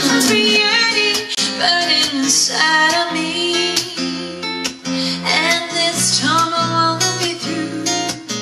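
Live acoustic duo: a cutaway acoustic guitar strummed in a steady rhythm, accompanying a woman singing a jazz standard into a microphone.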